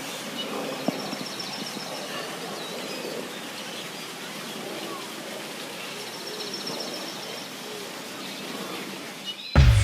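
Outdoor ambience with faint bird chirps and short high trills over a low murmur of voices. Loud music starts suddenly near the end.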